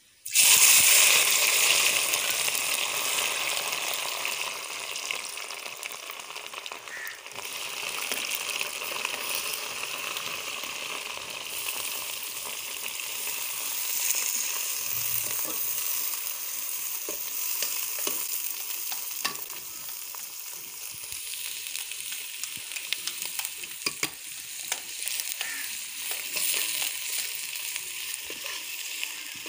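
Sliced bitter gourd frying in hot oil in an aluminium wok. The sizzle starts suddenly about half a second in as the karela hits the oil, then eases to a steady frying hiss. A metal spatula stirring and scraping the pan adds scattered clicks.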